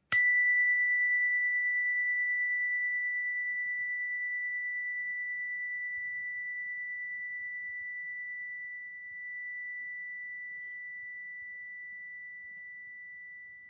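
A meditation chime struck once, giving a clear, high, pure ring that fades slowly and keeps sounding well past ten seconds; its brighter overtones die away within the first couple of seconds.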